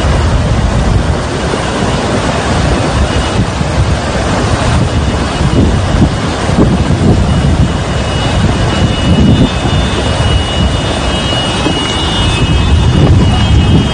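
Rushing of a muddy flash-flood torrent, a loud, steady, rumbling wash of water, with wind buffeting the microphone.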